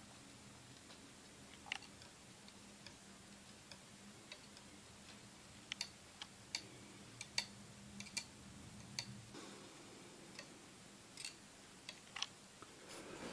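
Faint, irregular small clicks and ticks, scattered unevenly, over a low steady hum that fades out about halfway through.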